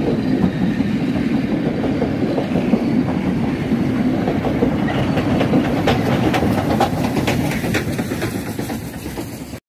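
Heritage passenger carriages of a steam-hauled train rolling past, the wheels clicking over the rail joints in a quick run of clicks midway. The sound fades as the last carriage draws away.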